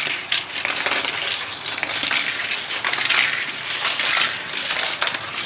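Several die-cast Hot Wheels cars rattling down a plastic wall-mounted track and through its spiral, a dense, continuous clatter of small clicks and knocks.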